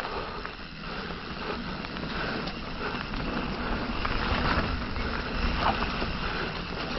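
Mountain bike being ridden along a dirt trail: steady tyre and rattling frame noise with wind rushing over the microphone, and a few small clicks.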